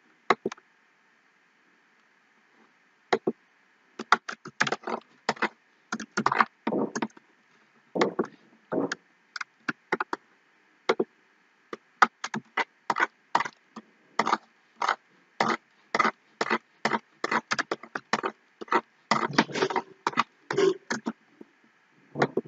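Irregular clicking and tapping of a computer mouse and keyboard, short sharp clicks coming one to three a second, starting about three seconds in and busiest in the second half.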